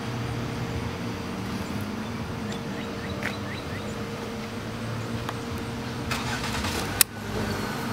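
Steady low mechanical hum from nearby machinery, with no engine running. About six seconds in comes a brief rattle, then a single sharp click as the motorcycle's ignition switch is turned on.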